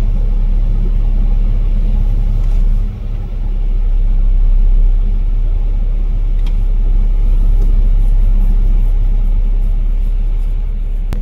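A vehicle engine running steadily, a low rumble, with a brief dip in level about three seconds in.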